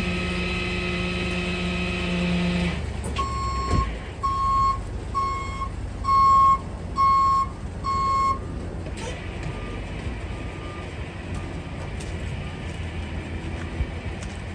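Tow truck's reverse alarm beeping as the wrecker backs up: six loud beeps at one pitch, about one a second, then a few much fainter beeps, over the low rumble of the truck's engine running.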